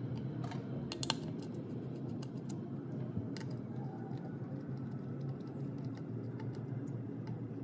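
Small irregular clicks and taps of a precision screwdriver on tiny screws and the phone's metal mid-frame, the loudest about a second in, over a steady low background hum.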